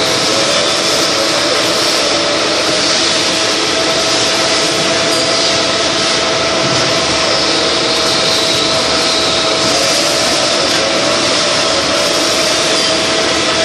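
Milling machine running, its spiral end mill cutting a flat on a round metal fitting to form a hexagon: a loud, steady machining noise with a constant tone running through it.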